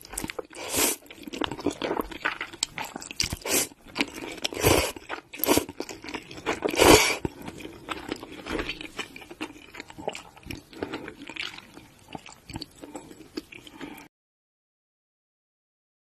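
Close-miked ASMR eating: noodles slurped and chewed, with irregular wet bites and crunches. It cuts off suddenly about two seconds before the end.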